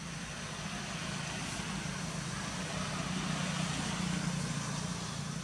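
A steady low engine hum, growing a little louder about three seconds in.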